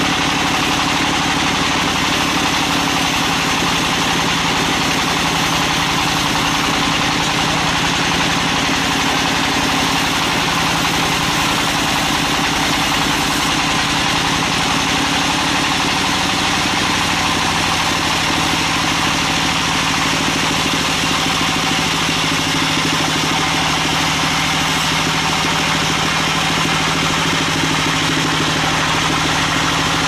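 Band sawmill running steadily as its blade cuts lengthwise through a large log: a steady machine drone with the hiss of the saw in the wood.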